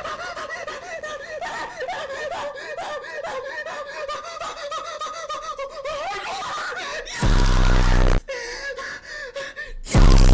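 Muffled, shaky giggling held back behind hands for about seven seconds. This is followed by two very loud distorted blasts, a buzzing one about seven seconds in and a shorter one near the end as a scream starts.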